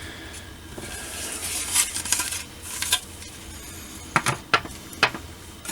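Plastic model-kit parts being handled: a rustling, then a few sharp clicks and knocks of hard styrene pieces about four seconds in.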